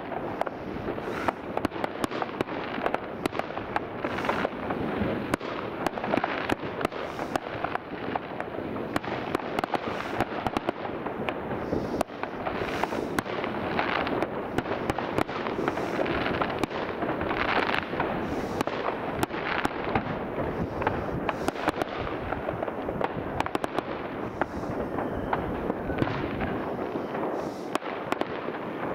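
Many fireworks going off at once: a dense, unbroken crackle of bangs and pops from firecrackers and aerial shells, with no pause.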